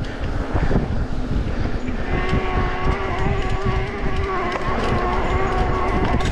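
A vehicle engine running under a heavy low rumble; about two seconds in, a steady engine note settles in and holds.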